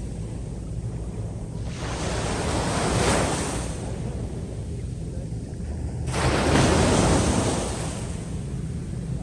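Sea waves breaking on a beach: two surges of surf, the second louder and starting sharply about six seconds in, over a steady low rumble of wind on the microphone.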